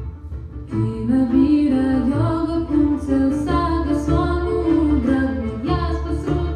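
Music accompanying a dance performance: sustained, slowly gliding melodic notes over a steady low bass. It thins out briefly at the start and fills back in just under a second in.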